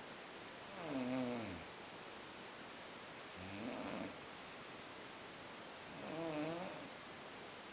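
Snoring in sleep: three drawn-out snores about two and a half seconds apart, each wavering in pitch, over a faint steady hiss.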